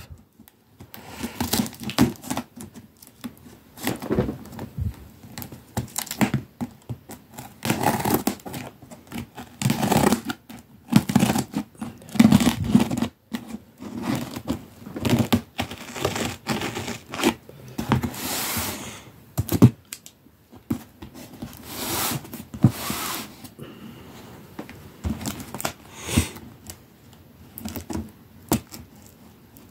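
Scissors cutting the packing tape on a cardboard box, with tape tearing and cardboard scraping. It comes as an irregular run of rasps and knocks, with a few longer rasps past the middle.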